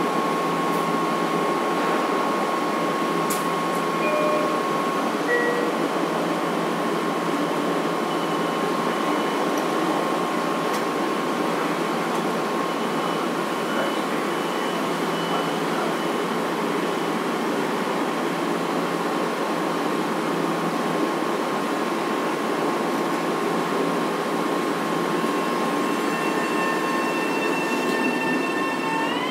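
Bombardier M7 electric multiple unit standing at a platform, its onboard equipment giving a steady hum and a constant whine, with a brief two-note falling chime about four seconds in. Right at the end the train starts off and its traction inverter whine begins to climb in pitch.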